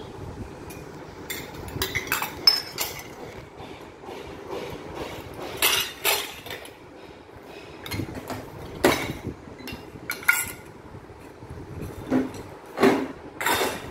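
Kitchen utensils and dishes being handled: scattered clinks and knocks, the loudest about six seconds in and again near nine and thirteen seconds.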